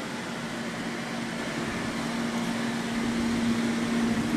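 A machine running steadily: an even fan-like rush with a steady low hum that grows slightly louder after the middle.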